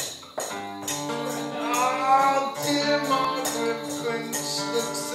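A live song: a voice over plucked strings, with a jingling percussion beat about twice a second.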